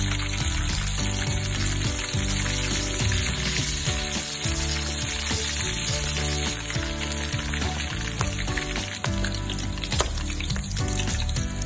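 Chicken pieces sizzling as they fry in hot oil in a wok, over background music.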